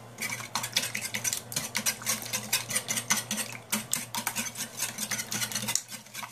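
Wire balloon whisk beating eggs into melted butter and sugar in a glass bowl, the wires clicking rapidly against the glass several times a second. The whisking stops briefly near the end.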